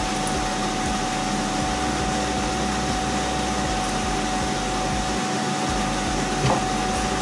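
A steady whirring hum, even throughout, with one constant tone running through it. There is a light tap about six and a half seconds in.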